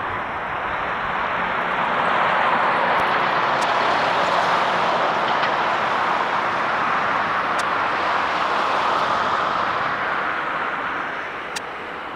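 Twin-engine jet airliner on its takeoff roll at takeoff thrust: a steady rushing jet-engine noise that grows louder about two seconds in and eases a little near the end.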